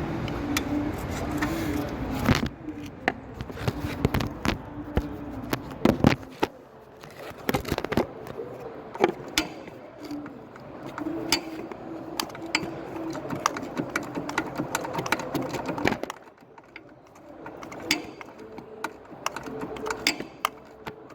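Hand tools working bolts out of a metal battery box cover: repeated sharp metal clicks and taps. A low steady hum runs under the first six seconds, then stops.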